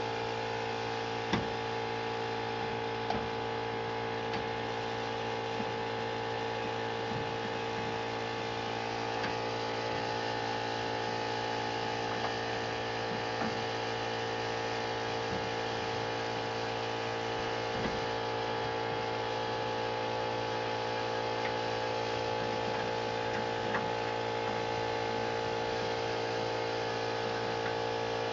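Steady hum with a few faint clicks and taps from a locking C-clamp being handled and fitted to a steel angle bar.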